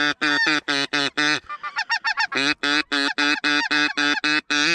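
Snow goose calls: a fast, loud run of honks, about three a second, with a softer, quicker stretch about halfway through, cutting off abruptly near the end.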